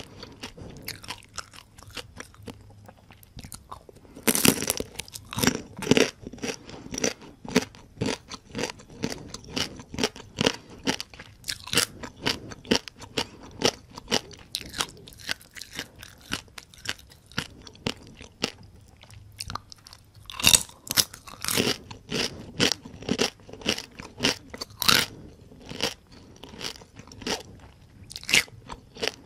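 Crispy deep-fried whole small rice-field crabs bitten and chewed close to the microphone: a dense run of sharp shell crunches, loudest in two stretches beginning about four seconds in and again about twenty seconds in.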